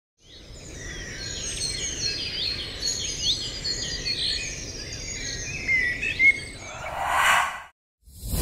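Many birds chirping and trilling over a steady outdoor background hiss. Near the end a rushing swell builds and cuts off abruptly, and a low boom comes right at the close.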